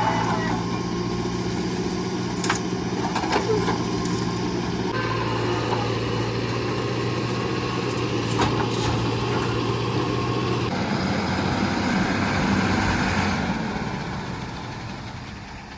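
A heavy diesel engine running steadily, with a few sharp clicks. Its note changes about a third of the way in and again past halfway, then fades off near the end.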